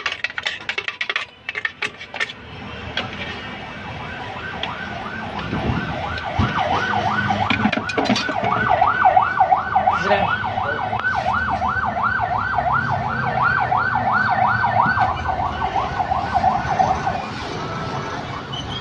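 Siren of a passing emergency vehicle in a fast rising-and-falling yelp, a little over twice a second. It comes in about four seconds in and dies away near the end. Sharp clicks and knocks come in the first couple of seconds.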